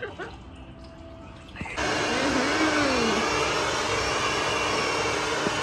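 Handheld hair dryer blowing hair: a steady, loud rush of air that cuts in suddenly about two seconds in, after a quieter start.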